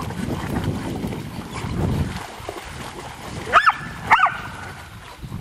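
A low rushing noise that fades out about two seconds in, then a dog gives two short high-pitched yips about half a second apart, each rising and falling in pitch.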